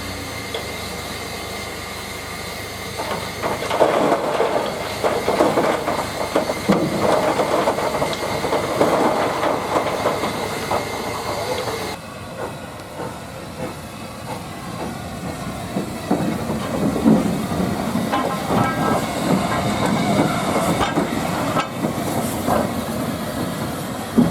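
Steam-hauled train running past, with steam hissing and the wheels clattering over the rail joints. The sound drops abruptly about halfway through, then builds again.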